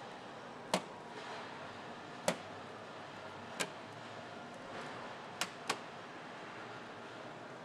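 Steady assembly-hall background noise broken by five short, sharp clicks or knocks, a second or so apart, with two close together about five and a half seconds in.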